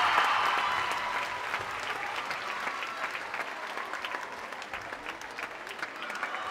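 A large theatre audience applauding a curtain call. The dense clapping thins out through the middle, so single claps stand out, then swells again near the end.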